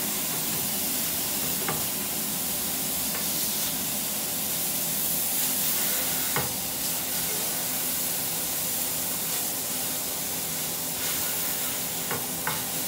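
Freshly flipped steaks sizzling steadily in a non-stick griddle pan, with a few sharp clicks as a plastic slotted spatula presses and shifts them against the pan.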